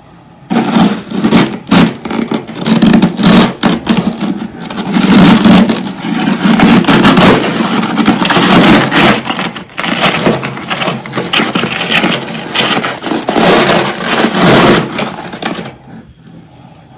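Freezer frost being crunched and broken up close to the microphone: loud, dense crackling crunches in quick pulses that stop shortly before the end.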